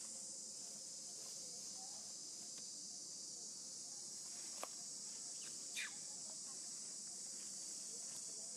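Steady high-pitched chorus of insects buzzing, with a sharp click and a short falling chirp a little past halfway.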